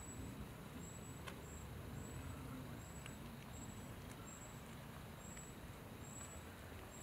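Faint outdoor ambience: a steady low rumble with a short, high, thin peep repeating a little more than once a second, and a couple of faint clicks.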